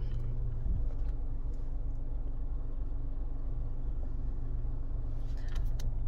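Steady low rumble of a car running, heard from inside its cabin, with a faint steady hum. A few light clicks come near the end.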